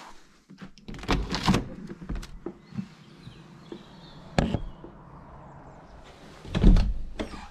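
A uPVC door being opened and handled: a few sharp clunks and rattles of its handle and frame, with the heaviest thud near the end.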